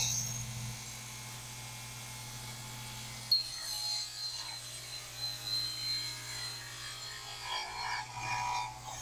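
Table saw noise fading out in the first second, then an MDF crosscut sled being slid and handled on the saw table: a sharp knock a little after three seconds, then scraping and rubbing of wood on the table.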